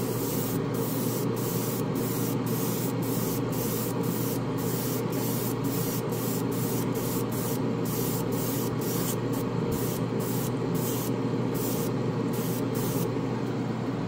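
Airbrush spraying paint in short repeated bursts, a pulsing hiss about three times a second, over the steady rush of the waterfall spray booth's falling water and extraction fan.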